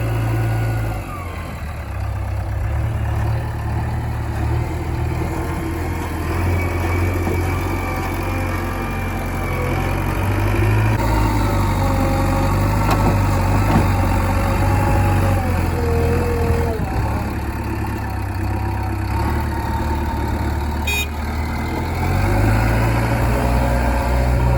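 Diesel engine of a JCB 3DX backhoe loader running steadily while it works, its revs rising and falling, with faint whining tones that glide above it. A short click near the end.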